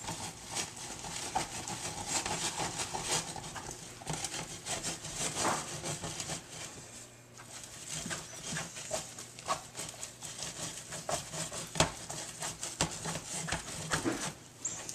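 Wooden spoon stirring and mashing a stiff cornmeal-and-flour bait dough in a plastic tub: irregular scraping, squelching and knocking of the spoon against the tub. It goes quieter for a moment about seven seconds in, with one sharper knock a few seconds later.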